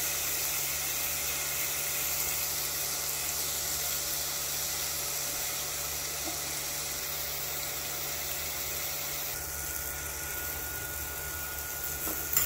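Steak and hot dogs sizzling steadily on the grill plate of a Power XL smokeless electric indoor grill, over the even hum of the grill's smoke-extractor fan.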